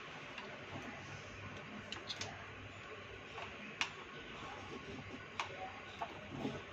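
Handling noise from a tower speaker's opened plastic control panel and its wiring: a few scattered small clicks and taps of plastic connectors and panel, the sharpest about four seconds in, over steady room noise.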